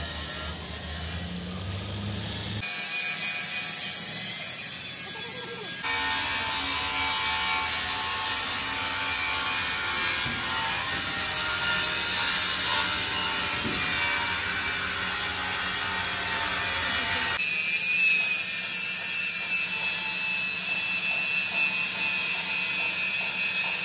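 Power tools working sheet steel for a dump-truck body: a steady harsh hiss with faint whining tones. The sound changes abruptly three times as the shots cut.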